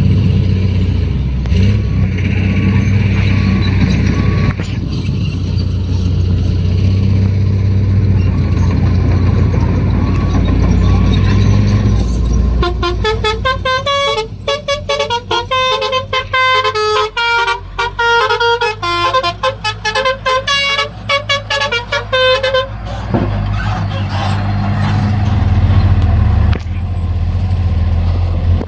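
Hino dump truck's diesel engine running steadily, then, about twelve seconds in, its telolet horn plays a fast stepping tune of multi-tone air-horn notes for about ten seconds before the engine is heard alone again. A few more horn notes start right at the end.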